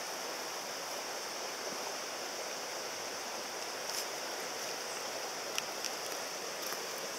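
Shallow stony stream running: a steady rush of water, with a few faint ticks about four and five and a half seconds in.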